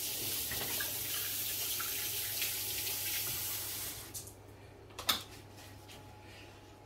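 Kitchen tap running steadily for about four seconds, then turned off; a single knock follows about a second later.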